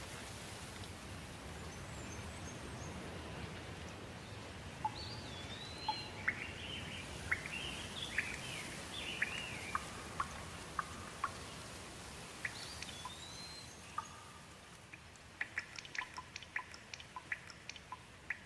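Steady rain hiss with a songbird singing whistled, sweeping phrases; a few seconds before the end, a quick run of short, sharp chirps.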